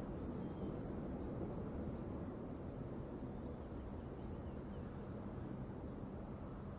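Steady low rumbling background noise with a few faint high chirps about two to three seconds in.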